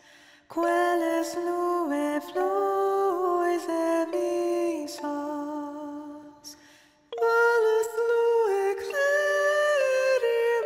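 Music: a woman singing slow, held notes in a soft, lullaby-like style, with little accompaniment underneath. It pauses briefly about six and a half seconds in, then comes back louder.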